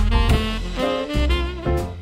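Background jazz instrumental music with a saxophone lead over bass and drums.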